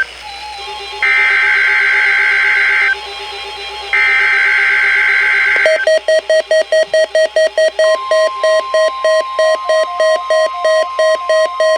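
NOAA Weather Radio test alert: two bursts of the SAME digital header's screechy data tones, about a second apart. Then a weather radio receiver's rapid alert beeping begins about halfway through, joined two seconds later by the steady 1050 Hz warning alarm tone.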